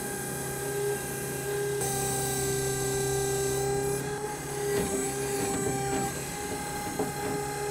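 ERE12E electric mini-excavator's electric motor and hydraulic pump whining steadily as the boom and bucket dig, the tone changing about two seconds in as the controls are worked. Scraping and rustle of soil in the bucket about five to six seconds in.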